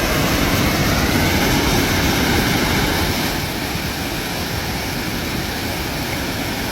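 River water rushing and splashing over rocks at a waterfall, a steady loud rush that eases slightly after about three seconds.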